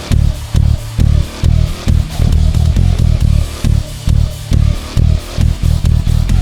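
Electric bass guitar playing a driving line of short, punchy low notes in a steady rhythm, with the band's track and drum hits behind it.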